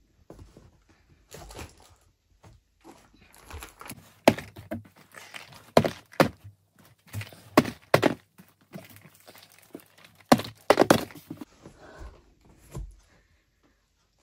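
Boxed bars of soap set down one after another onto the cardboard floor of a packing box. Each lands with a short thunk, about a dozen at uneven intervals, with rustling of the card packaging between.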